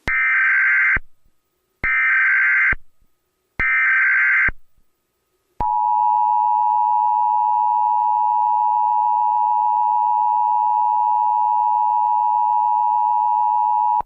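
Emergency Alert System tones: three short bursts of the digital SAME header, about a second each, then the steady two-tone EAS attention signal starting about halfway in and holding. This is the sequence that opens an emergency alert broadcast.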